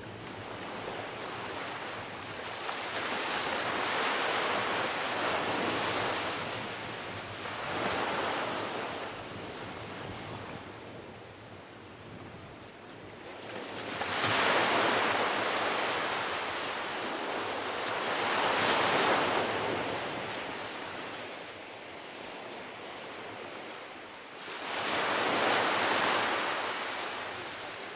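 Small ocean waves breaking and washing up a sandy beach. The hiss of the surf swells and fades every few seconds, loudest about halfway through and again near the end.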